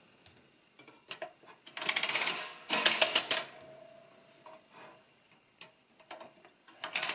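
Peter Pan tin-plate toy adding machine having its slides pulled down by finger: each pull is a loud, fast run of metal clicks lasting under a second as the digit is added to the register. Two pulls come close together about two seconds in, with another starting near the end and a few small clicks between.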